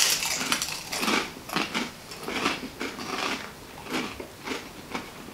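Close-up crunching of knäckebröd crispbread topped with pickled herring being bitten and chewed, irregular crunches about twice a second with a loud bite at the start.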